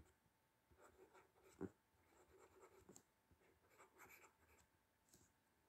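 Faint strokes and small taps of a stylus writing words on a tablet, with one slightly louder tap a little over a second and a half in.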